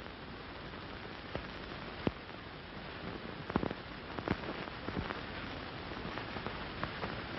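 Steady hiss of an early-1930s optical film soundtrack, with scattered crackles and pops and no other sound.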